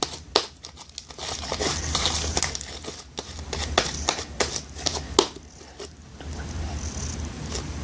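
Clear-glue slime worked by hand, giving off irregular sticky crackles and pops. The crackling dies down about six seconds in.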